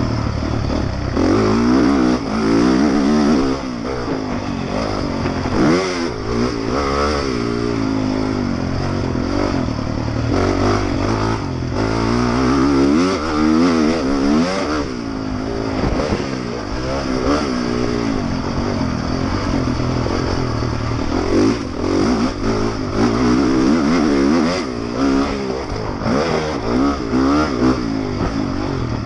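Honda motocross bike's engine heard close from an onboard camera, its revs climbing and dropping again and again as it is ridden hard around a dirt track.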